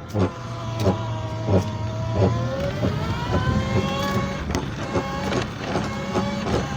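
Scooter running with a steady whine that rises in pitch midway and then eases back, over a regular grinding knock that repeats about every two-thirds of a second: the grinding noise the scooter has developed.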